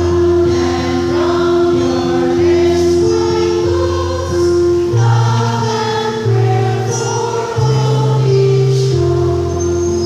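Church choir of mostly women's voices singing a hymn-like song in harmony, over steady held accompaniment notes that change every second or two.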